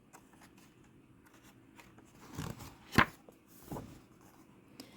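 Paper rustling as a book page is turned, with one sharp snap of the paper about three seconds in and softer rustles either side of it.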